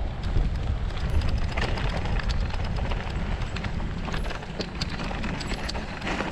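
Riding a bicycle over a bumpy, rough road: a steady wind rumble on the microphone, with many irregular clicks and rattles from the bike jolting.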